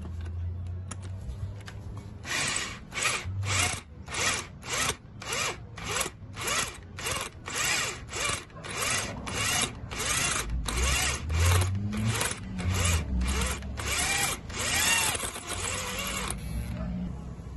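Electric drill with a twist bit boring into the head of a stripped bolt in a motorcycle front fork leg, drilling out the bolt head to free it. From about two seconds in it runs in short trigger bursts, nearly two a second, the motor speeding up and slowing with each one. Near the end it runs in a few longer bursts.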